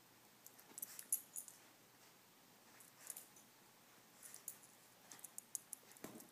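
Faint, scattered rustling and small clicks of two small dogs play-wrestling on a blanket.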